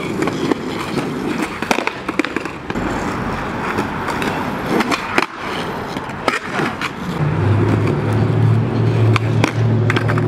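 Skateboard wheels rolling on a concrete sidewalk, with several sharp clacks of the board striking the pavement during trick attempts. The rolling turns into a steadier, deeper rumble in the last few seconds.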